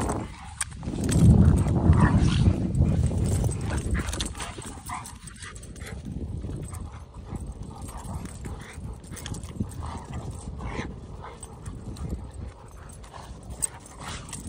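Dogo Argentino dogs play-fighting on dry grass: scuffling and dog noises, loudest in the first three seconds, then quieter with many small clicks and rustles.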